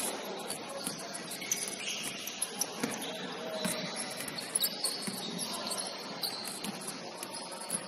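Basketball warm-up noise on a hardwood court: many short sneaker squeaks and basketballs bouncing on the floor.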